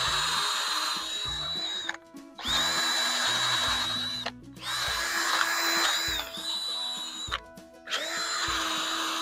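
Cordless drill spinning an abrasive rust-stripping attachment against the rusty steel of a bush hog's gearbox housing, in four runs of a high steady whine with short pauses between them. Background music plays underneath.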